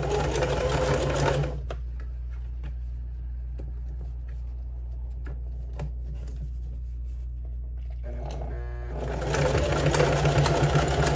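Singer Heavy Duty sewing machine stitching through climbing rope in two runs: a short run at the start, a pause with small clicks as the rope is handled, then a second run that begins with a few slow stitches and speeds up near the end.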